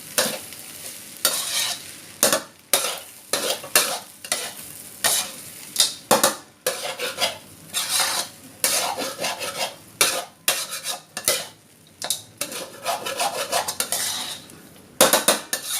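Seafood fried rice being stirred and tossed in a hot pan: repeated scraping strokes of the spatula, irregular at about one or two a second, over a light sizzle.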